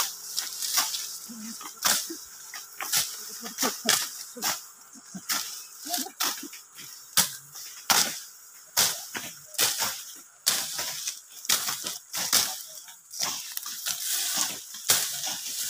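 Machete chopping and slashing through tall grass and dry brush: irregular sharp cuts, about one or two a second, with rustling and snapping stalks.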